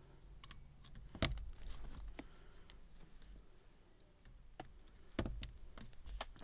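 Mechanical keyboard switches being pressed into the plate and PCB: scattered sharp plastic clicks and snaps, the loudest about a second in, then a few more near the end.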